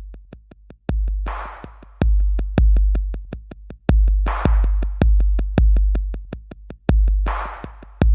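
Background electronic music with a steady beat: heavy deep kicks, fast even hi-hat ticks, and a noisy swish about every three seconds.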